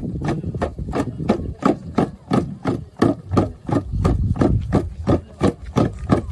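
Hand drums beaten in a quick, even rhythm of sharp, ringing strokes, about three beats a second, accompanying a traditional Papuan dance.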